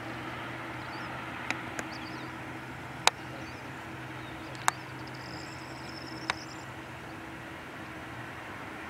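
Binter ATR 72 turboprop taxiing, heard as a steady hum over a hiss of engine and airport noise. A few sharp clicks stand out, the loudest about three seconds in, from the stiff tripod head as the camera pans.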